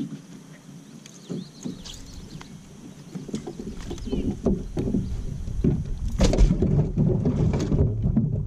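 Scattered knocks, bumps and rustling on a fibreglass bass boat as an angler handles a freshly landed bass, unhooking it; the knocks get more frequent and louder from about halfway through. Faint bird chirps in the first couple of seconds.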